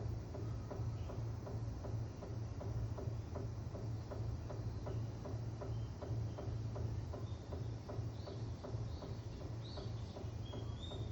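Drain pipe giving off a constant rapid ticking, about four ticks a second and like dripping water, over a low steady hum. It is an abnormal noise that never stops and carries loudly into the rooms.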